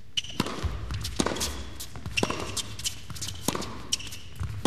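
Tennis rally on an indoor hard court: a tennis ball struck back and forth by rackets, with a sharp hit about once a second.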